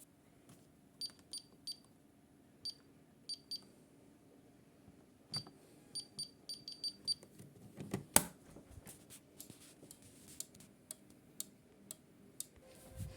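Short high-pitched beeps of a security alarm keypad as buttons are pressed, in two irregular runs: six spread out, then eight in quicker succession. These are followed by a scatter of sharp clicks, the loudest about eight seconds in.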